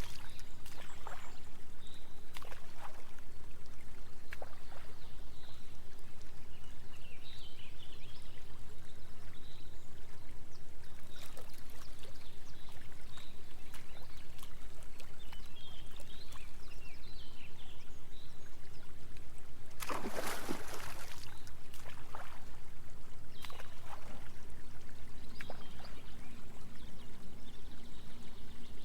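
Trickling waterfall sound effect layered over steady, low, pulsing binaural-beat tones. A few short splashes break through, the loudest about twenty seconds in.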